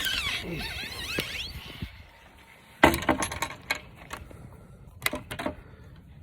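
High squeaks gliding up and down for about two seconds. A sharp, loud knock follows nearly three seconds in, then a few lighter clicks and knocks.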